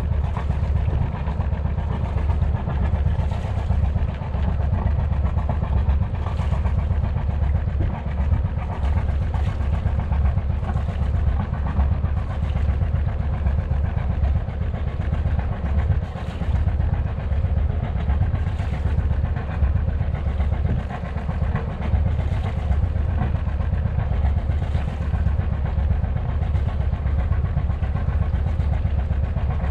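Sailboat's inboard engine running steadily, a constant low drone with no change in speed.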